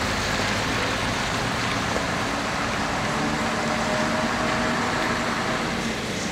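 Old double-decker bus engine running as the bus comes along a wet street, under a steady hiss.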